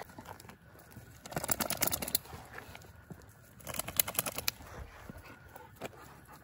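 Two bursts of rustling and crackling, about a second each and roughly two seconds apart, from movement through dry leaves and brush on a trail.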